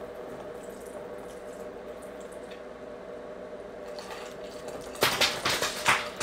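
Ice water being drunk from a tipped-up bowl: quiet slurping over a faint steady hum, then a run of loud sharp noises about five seconds in as the ice slides down to the mouth and gets bitten.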